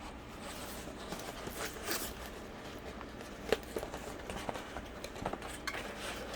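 Packaging from a diamond painting kit being handled by hand: scattered rustling and light clicks, with a sharper click about three and a half seconds in.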